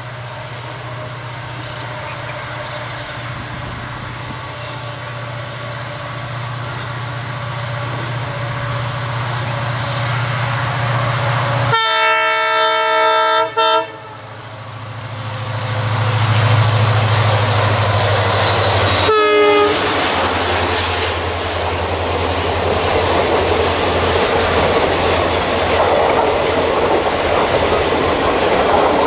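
WDP-4D diesel locomotive's EMD two-stroke engine humming steadily and growing louder as it approaches. About twelve seconds in it sounds a horn blast of about two seconds, and about seven seconds later a short second toot, followed by the rumble and wheel sounds of the train rolling past on the track.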